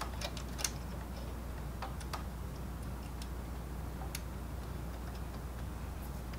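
Scattered light plastic clicks and taps, several irregularly spaced over a few seconds, as a ribbon cable is pressed down into its connector in the printer's top cover, over a steady low hum.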